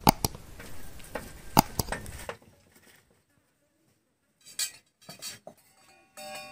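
Several sharp clinks and knocks of metal kitchenware, a steel plate and utensil, bunched in the first two seconds, then only a few brief faint sounds.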